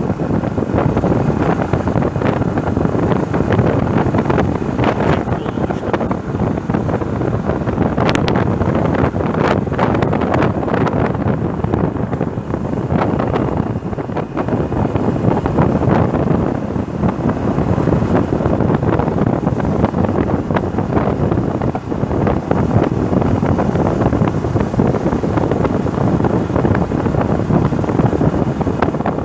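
Wind buffeting the microphone of a camera on a moving motorcycle: a loud, steady rush at road speed.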